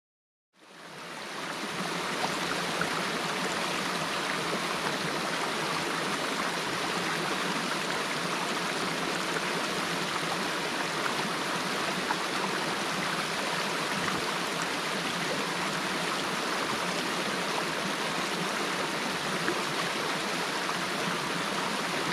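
A stream rushing steadily, fading in over the first two seconds.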